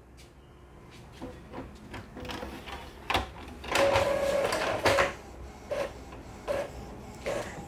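Epson EcoTank L3150 inkjet printer starting a black-and-white job: scattered mechanical clicks and a sharp knock as the mechanism engages, then a steady motor whine for about a second from around four seconds in, followed by more clicks as the paper feeds.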